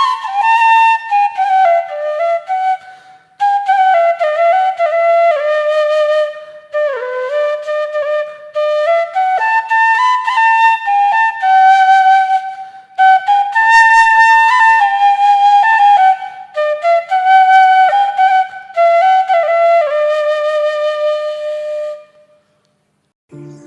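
Background music: a solo flute melody in flowing phrases, notes sliding into one another, with short breaks between phrases; it stops shortly before the end.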